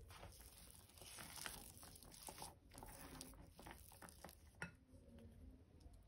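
Faint scraping and light tapping of a silicone spatula stirring a crumbly dough in a ceramic bowl, with one sharper click near the end.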